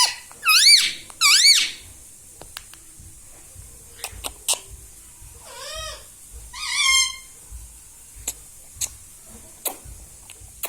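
Pet ringneck parrot giving shrill, warbling calls that swoop up and down in pitch: three loud ones in the first two seconds and two softer ones about six seconds in, with a few sharp clicks between.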